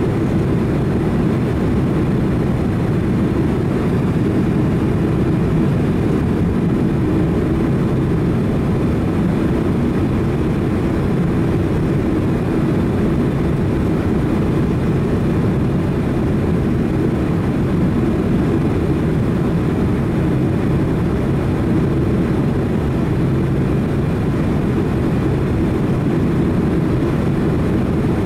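Steady, unchanging low rumble of a Boeing 767-300 jet airliner's engines and airflow.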